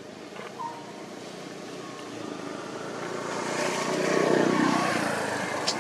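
A passing engine: a steady motor drone that grows louder to a peak about four seconds in, then begins to fade. A brief sharp click comes near the end.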